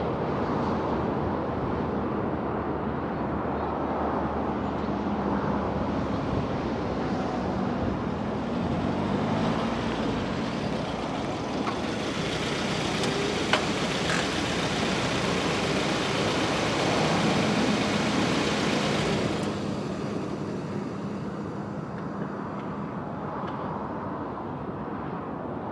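Suzuki Swift Sport (ZC31S) running with engine and road noise, a louder rushing noise passing between about halfway and three quarters through, and a single click.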